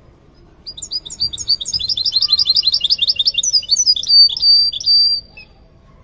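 Caged finch singing one song phrase: a fast, high trill of repeated notes that slows into a few separate notes and ends on a short held whistle. It starts about a second in and stops about a second before the end.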